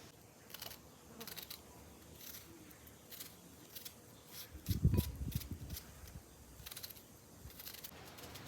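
Handling noises: a string of short, crisp clicks and snips, with one dull low thump about five seconds in that is the loudest sound.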